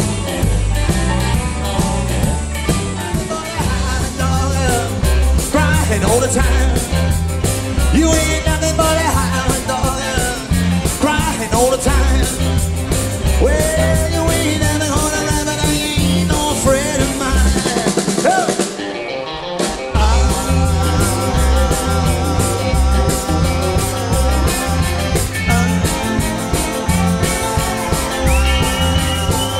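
Live rock 'n' roll band playing an instrumental passage, electric lead guitar over drums and bass. About two-thirds of the way through, the drums and bass drop out for a couple of seconds, then the full band comes back in.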